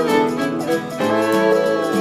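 Instrumental country music with fiddle and guitar, sustained fiddle notes sliding over a strummed accompaniment.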